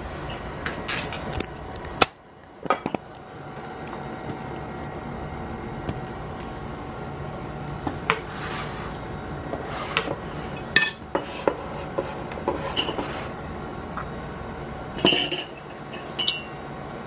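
A metal spoon and a drinking glass being handled on a table: scattered clinks and knocks, a few with a short glassy ring, over a steady low hum.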